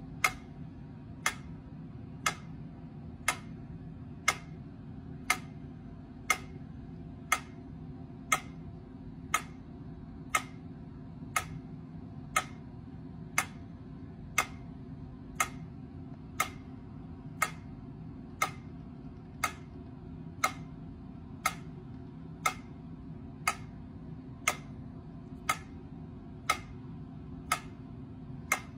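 Mechanical pyramid metronome ticking evenly, about one tick a second, its pendulum swinging.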